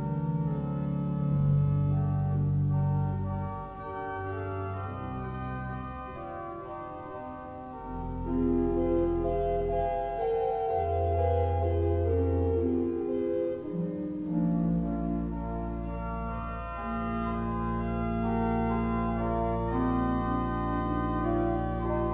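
Church pipe organ playing a calm, slow piece: sustained chords over deep held pedal notes. The pedal bass drops out for a few seconds early in the passage, then comes back low and steady for the second half.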